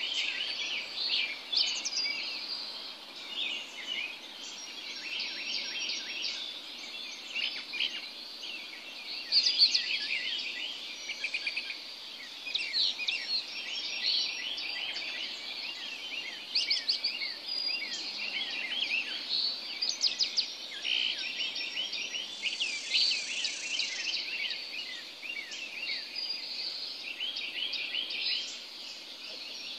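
Dense early-morning chorus of many birds: overlapping short chirps, whistles and quick rising and falling notes that run on without a break. A brief hiss sits above them about two-thirds of the way through.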